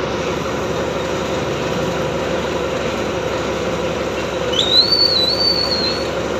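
Heavy lifting machinery's engine running steadily with a constant drone. About four and a half seconds in, a high wavering whistle rises and holds for about a second and a half.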